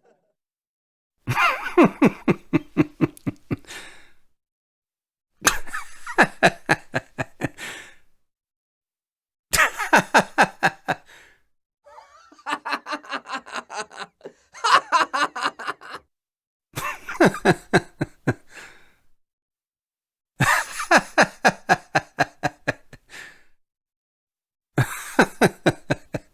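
A man laughing in a series of separate bouts, each a quick run of 'ha-ha' pulses about two to three seconds long, cut off into silence between them.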